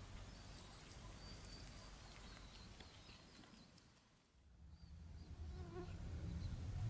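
Faint garden ambience with insects buzzing and short high chirps. The sound dips away about four seconds in, then a low rumble comes up and grows louder.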